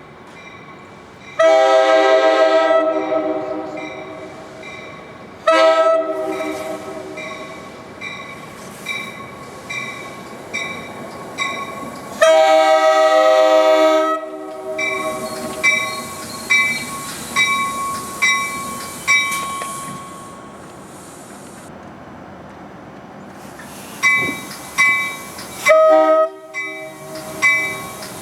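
NJ Transit train's multi-chime air horn sounding a series of blasts, long ones and short ones, the long ones about 2 seconds each. A bell rings in steady strokes, a little under twice a second, between the blasts.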